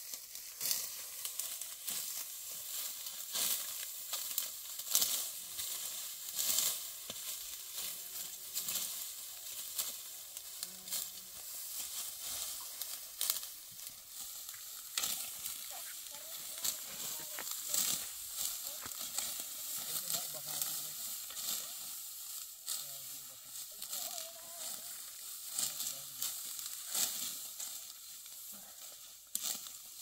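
Dry, ripe wheat stalks rustling and crackling as they are cut and gathered by hand in continual quick handfuls.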